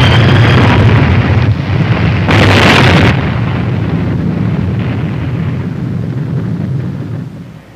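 Roar of a large explosion blast, loud from the start, with a second loud surge about two and a half seconds in, then a low rumble fading away over the next few seconds.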